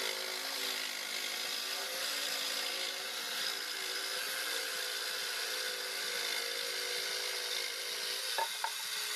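Corded electric jigsaw running steadily while its blade saws along a curve through a wooden board. The motor hum holds an even pitch under the rasp of the blade.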